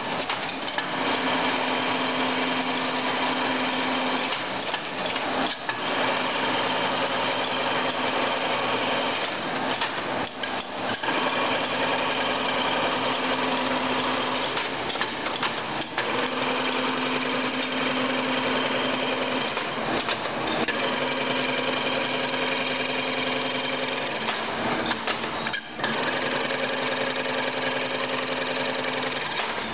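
Chain-link fence weaving machine running: its electric motor and belt-driven pulleys turning while the forming head bends and twists wire, a steady mechanical clatter with a hum that comes and goes every few seconds.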